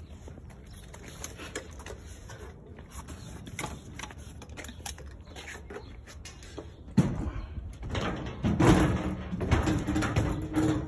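Faint rustle and clicks from a handheld phone being carried, then, from about seven seconds in, louder irregular knocks and clanks of someone stepping onto a metal ride platform.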